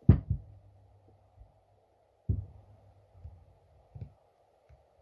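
Dull knocks and thumps of the heavy cast-metal carburetor body of a McCulloch 1225A chainsaw being handled and set down on a padded workbench: a sharp knock at the start, a heavier thud a couple of seconds in, then a few lighter taps, over a faint steady hum.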